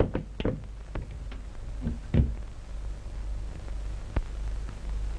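Telephone receiver set down on its desk phone with a sharp clunk, followed by a few soft knocks and a single click from handling things on the desk, over the steady low hum and hiss of an early optical film soundtrack.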